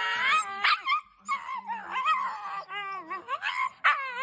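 A dog vocalising in a string of short, high-pitched whining calls that waver up and down in pitch, one after another.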